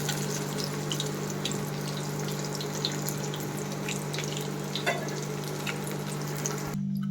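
Hot oil sizzling with scattered crackles and pops from deep-frying chicken pieces, over a steady low hum; the sizzle cuts off abruptly near the end, leaving only the hum.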